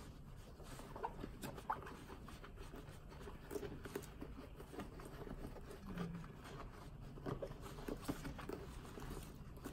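Faint rustling and scratching of hands handling a grained lambskin bucket bag, with scattered light clicks.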